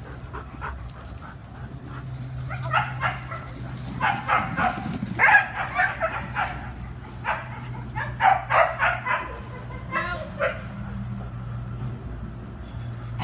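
Dogs barking in quick runs of barks, starting about two seconds in and thinning out near the end, over a steady low hum.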